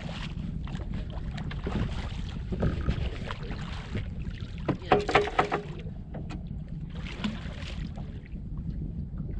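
A hooked striped bass thrashing and splashing at the surface beside a small skiff as it is brought in, in short bursts with the loudest about halfway through, over a steady low rumble of wind on the microphone.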